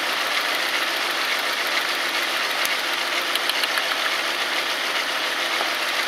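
Volkswagen 2.3 V5 petrol engine idling steadily with the plug lead pulled off one cylinder, which makes no difference to how it runs: that cylinder is the one misfiring.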